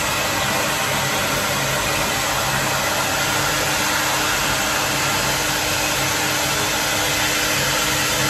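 Hand-held hair dryer running steadily, a continuous rushing blow with a low motor hum, drying a small dog's wet coat after its bath.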